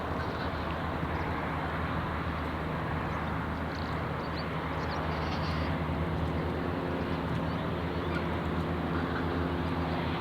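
Steady low engine drone over a wash of outdoor background noise, with a few faint high bird chirps in the middle.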